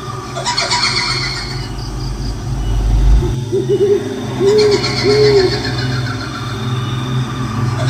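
Eerie ghost sound-effect mix: an owl hoots three times in the middle, a quick wavering hoot then two longer ones, between bouts of a shrill, quavering high-pitched cry offered as the kuntilanak ghost's wail. A low rumble builds underneath and cuts off suddenly about three seconds in.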